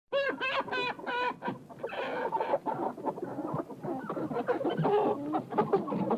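Chickens clucking: a run of four or five quick, wavering calls at the start, then several birds clucking over one another.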